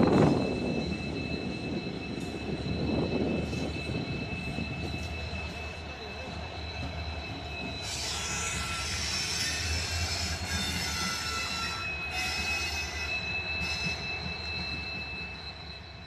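A string of coupled Indian Railways diesel locomotives running light and rolling slowly past: a low engine rumble under a steady high-pitched wheel squeal on the rails. The screeching grows louder and harsher about halfway through, and the whole sound fades away near the end as the locomotives move off.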